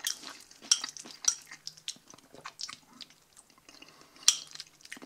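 A fork stirring and scooping saucy sauerkraut in a small bowl, with scattered scrapes and clicks against the bowl. One sharp click comes a little after four seconds in.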